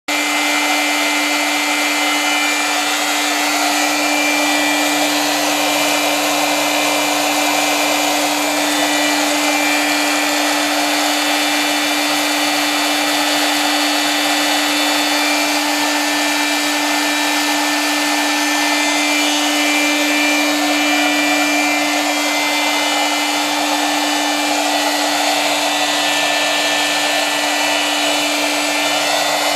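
Blower fan of a DIY fluid-bed coffee roaster running steadily, blowing hot air up through coffee beans in the glass roasting chamber: an even rush of air over a constant motor hum.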